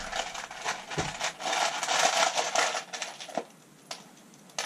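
Loose 1¼-inch metal deck screws rattling and clinking together in the hand, stopping about three and a half seconds in; two single small clicks follow.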